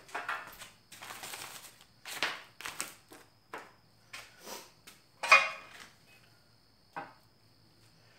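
Metal engine parts being handled and set down on a workbench: a series of irregular clanks and scrapes, the loudest about five seconds in.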